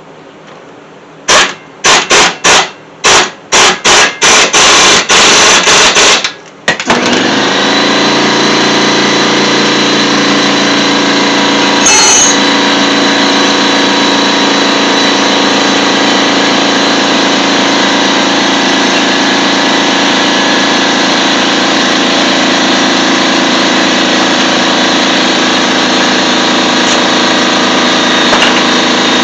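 Impact wrench fired in about ten short, loud bursts, tightening bolts on a car's front strut assembly. About seven seconds in, an air compressor starts and runs steadily. There is a single knock near the twelve-second mark.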